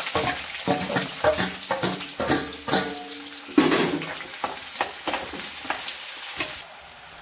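Chopped onions and green chillies hitting hot oil in a wok and sizzling, with a spatula scraping and clinking against the pan as they are stirred. The sizzling eases near the end.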